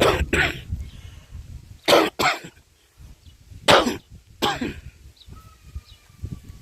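A person coughing repeatedly from a cold, in short sharp coughs that come mostly in pairs, about six in all.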